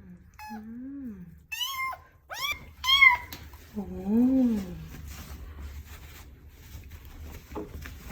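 A young kitten mewing in distress just after a bath it hated: three quick high-pitched mews about two to three seconds in, with lower drawn-out calls before and after, then it goes quieter.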